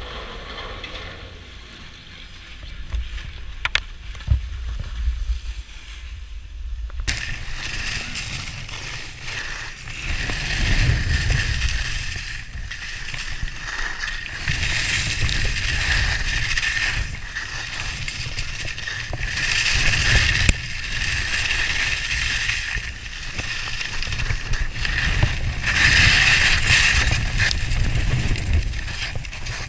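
Skis scraping and hissing over packed snow during a downhill run, with wind rumbling on the microphone. The sound is a low wind rumble at first and changes abruptly about seven seconds in to a louder, steady scrape that swells and fades with each turn.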